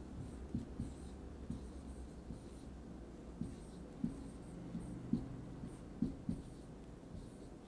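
Dry-erase marker writing on a whiteboard: a series of short, faint pen strokes, with light knocks of the marker tip against the board.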